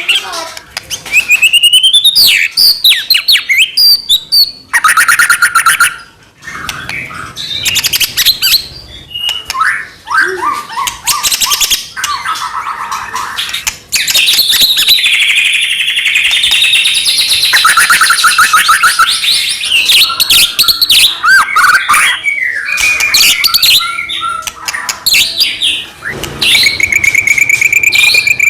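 White-rumped shama (murai batu) in loud, full song: a long run of varied phrases of rapid trills, whistled glides and fast chattering notes, with only brief pauses between phrases.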